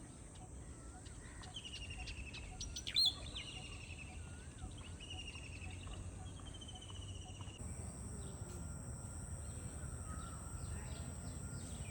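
Birds chirping: short repeated trills and whistles, with one loud sharp whistle about three seconds in, over a steady low background rumble. In the second half the trills give way to quick high chirps over a thin steady high tone.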